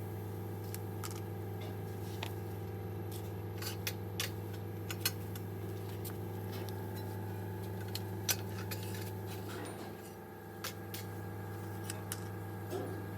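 Steady low machine hum with scattered light metallic clicks and taps from work on metal parts.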